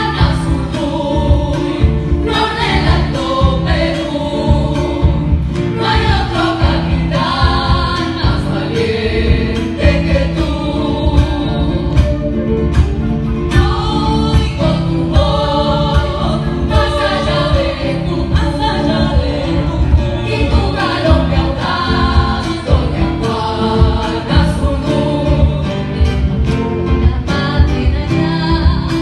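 A group of women singing together into microphones, amplified through a PA, over an accompaniment with a steady beat.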